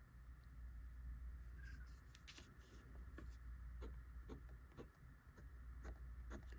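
Fountain pen's Schmidt nib scratching across paper in a faint series of short, irregular strokes. The nib is scratchy enough that it seems to tear the paper fibres.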